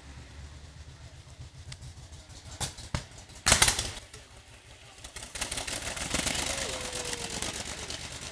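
Vintage racing car engine passing, its rapid crackle of firing strokes swelling from about five seconds in. Before that, two small knocks and then a loud, short burst of noise about three and a half seconds in.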